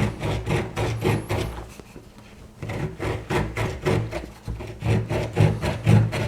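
A simple pocket knife sawing back and forth through a wooden tree branch: quick rasping strokes, a few a second, with a short pause about two seconds in. The blade is blunt and cuts with difficulty.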